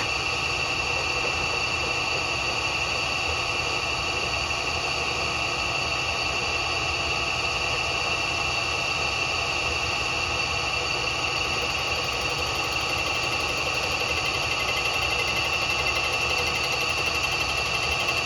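Bridgeport milling machine running steadily, its cutter taking a light skim cut of two thousandths of an inch across a Harley-Davidson cylinder's deck to true up warping. The sound is an even machine noise with several steady high whining tones.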